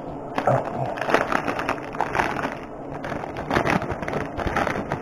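A paper-and-plastic product packet being torn open and handled, giving irregular crinkling and crackling.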